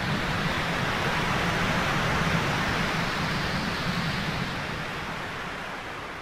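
A steady rushing, static-like noise effect with a low hum underneath. It slowly fades over the last couple of seconds.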